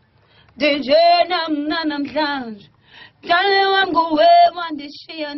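A young singer's unaccompanied voice sung into a studio microphone: two melodic phrases with sliding, held notes, separated by a short breath pause about three seconds in.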